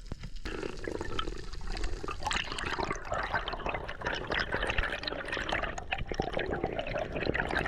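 Water rushing and bubbling over the camera's microphone, a dense crackly wash with many small clicks.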